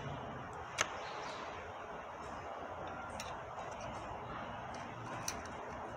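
Sharp metallic clicks from two screwdriver tips prying a steel snap ring off a transmission shaft under a rag: one loud click about a second in, then two fainter ones, over steady background noise.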